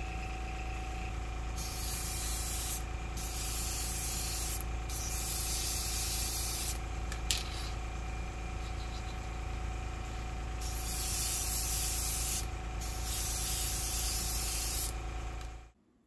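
Badger Patriot 105 airbrush spraying thin matte acrylic varnish in about six separate hissing passes, each one to two seconds long, over a steady hum.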